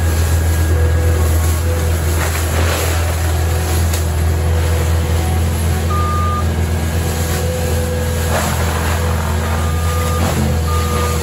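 Diesel engine of a tracked skid steer with a forestry mulcher attachment running steadily with a low drone, with a few short high beeps about six seconds in and again near the end.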